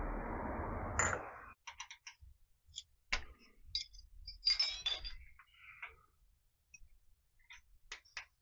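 Light metallic clicks and clinks of small metal parts being handled by hand, as single strokes with a short cluster about four and a half seconds in. A steady rushing noise runs under the first second and a half, then stops.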